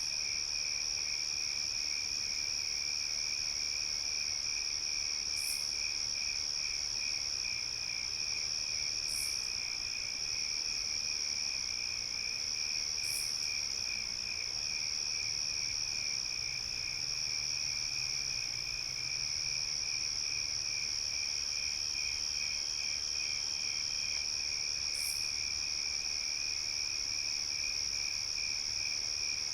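Night chorus of crickets: a steady high trill over a lower, rapidly pulsing chirp. A short, very high chirp cuts in now and then, about four times.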